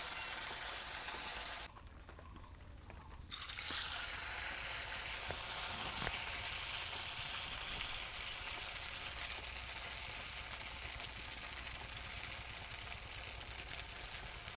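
Hot oil sizzling and bubbling steadily in a kadai as semolina luchi deep-fry. The sizzle drops quieter for about a second and a half near two seconds in, then picks back up.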